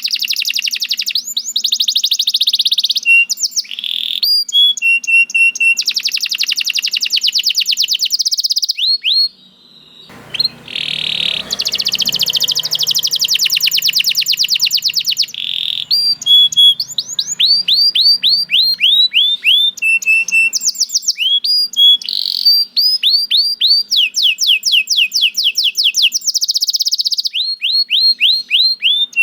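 Domestic canary singing a long, fast song of rapid rolling trills and strings of repeated falling whistled notes, with a brief pause about nine seconds in.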